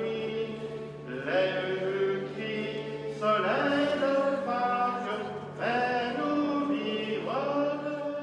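Singing at a church service: long held notes, a new one about every two seconds, each beginning with a short upward slide, over a steady low sustained tone.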